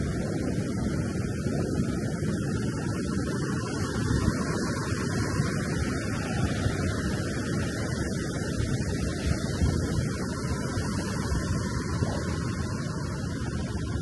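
Ocean surf washing onto the beach, a steady low rush of noise.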